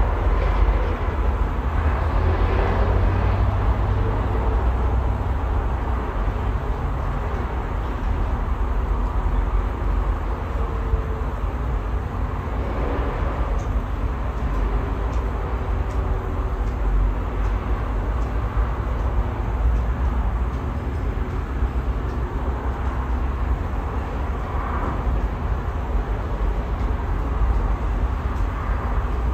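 Strong wind buffeting the microphone in a gusty low rumble, over a steady hum of distant city traffic.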